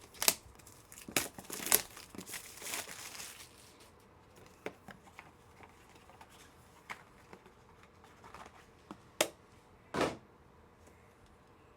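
Plastic packaging crinkling and rustling, with sharp clicks, as trading cards are unwrapped and handled. The handling is busiest in the first few seconds, then gives way to a few scattered clicks and two short rustles near the end.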